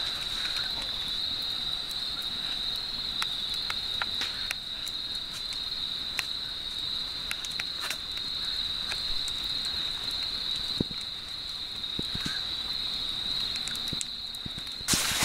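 A steady high chirring of night insects, with scattered crackles and pops from a wood fire burning in a fire grill.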